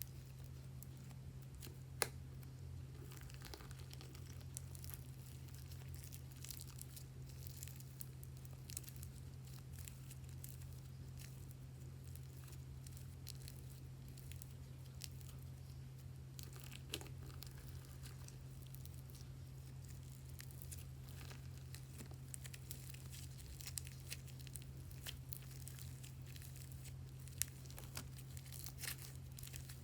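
Butter slime being kneaded and stretched by hand: faint sticky crackling with scattered small pops and clicks, over a steady low hum.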